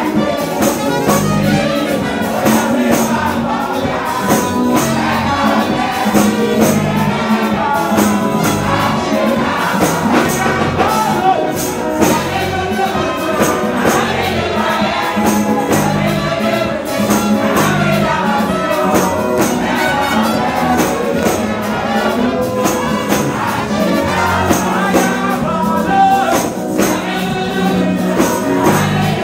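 Lively gospel praise music: singing voices over a steady beat with jingling percussion.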